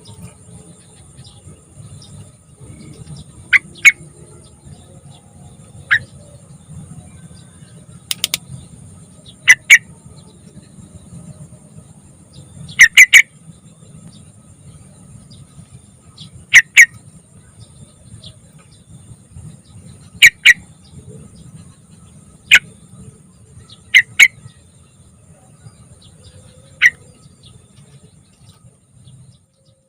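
Sooty-headed bulbul (trucukan) giving short, sharp call notes, singly, in pairs or in threes every few seconds, over a faint low rumble.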